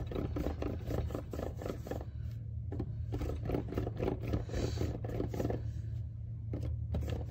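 Hands rolling a clay coil back and forth on a wooden tabletop: a quick, rhythmic rubbing and patting, about five strokes a second, over a steady low hum.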